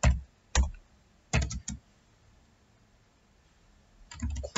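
Computer keyboard keystrokes: a few separate key presses in the first two seconds, a pause of about two seconds, then a quick run of typing near the end.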